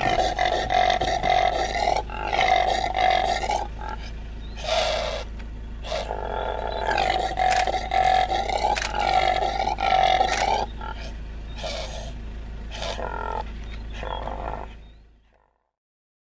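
Common impala calling: a run of loud, repeated calls in several bouts with short gaps, weaker over the last few seconds and stopping about a second before the end.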